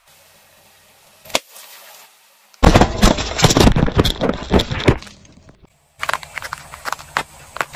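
Car tyre rolling over aluminium soda cans: a dense run of loud cracking, crunching and spraying as the cans burst, lasting about two seconds. A single sharp snap comes about a second in. Near the end there is a run of short cracks and crunches as the tyre crushes an eggplant.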